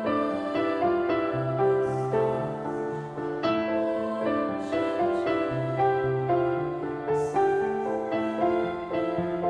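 Instrumental passage of a slow pop ballad led by piano, sustained chords and notes with no singing.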